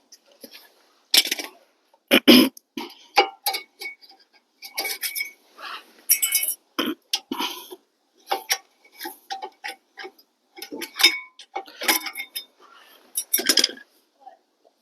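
Irregular metallic clinks and knocks of brake parts and tools being handled during a front brake pad change, the loudest a clank about two seconds in.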